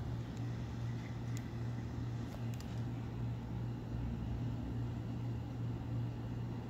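Steady low mechanical hum with an even hiss over it and a few faint ticks.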